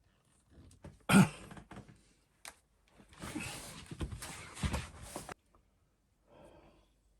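Workbench handling noise: a sharp knock about a second in, then a couple of seconds of rubbing and scraping that stops suddenly.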